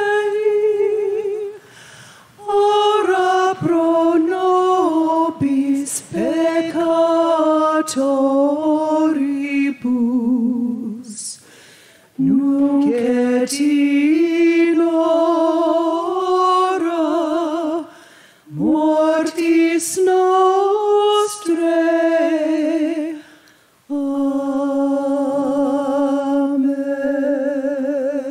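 A woman singing a slow hymn solo, phrase by phrase with short breaks for breath between, holding notes with vibrato, and ending on a long sustained note.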